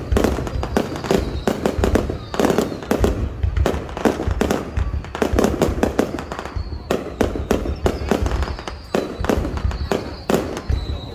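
Fireworks display, many sharp bangs of shells bursting in rapid succession over a deep low rumble.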